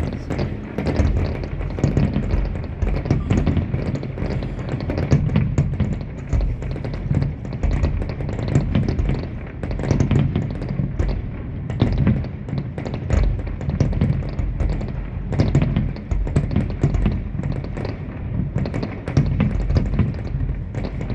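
Music playing over a fireworks display, with many irregular sharp bangs and crackles and a heavy low rumble throughout.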